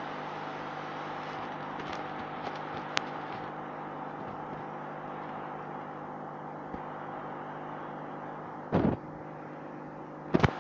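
Steady machine hum with several fixed tones. A sharp click comes about three seconds in, and two short loud bumps come near the end.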